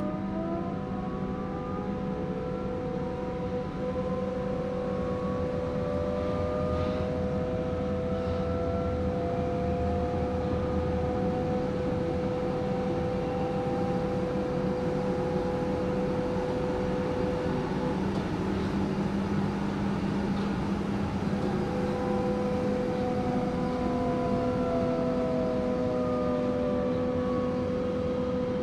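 AEG/MAN/Siemens DT1 three-phase U-Bahn train's traction drive whining in several rising tones as it accelerates for about the first nine seconds. It then runs at a steady pitch over a constant hum, and near the end falling tones as it slows down.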